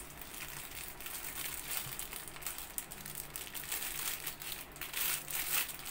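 Small clear plastic bag of screws and rubber rings crinkling as it is handled and pulled at, in a fast run of crackles that grows louder near the end.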